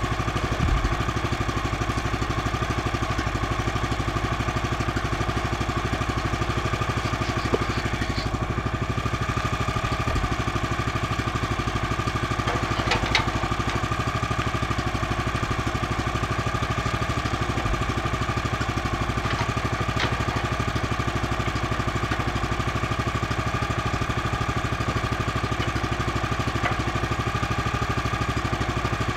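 Gasoline engine of a Woodland Mills HM126 portable bandsaw mill idling steadily while it warms up. A few brief knocks of timber being handled on the mill bed.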